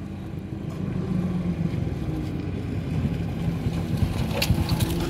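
Small motorcycle engine running as the bike rides up a dirt track, getting louder as it approaches, with a few sharp clicks near the end.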